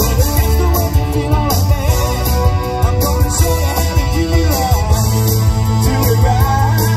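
Live band playing an upbeat dance number through a stage PA, with a steady beat, strong bass and guitar.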